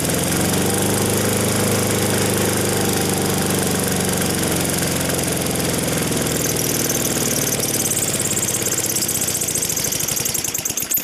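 Small lawn mower engine running steadily at full throttle, its throttle zip-tied wide open and its oil drained out, with a leaking crank seal, so that it runs itself toward failure.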